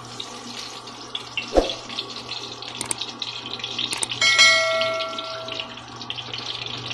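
Cooking oil poured from a plastic bottle into a metal frying pan, with a thud about a second and a half in. Near the middle come two sharp clicks, then a bell chime that rings for about a second and a half, from a subscribe-button animation. A steady low hum runs underneath.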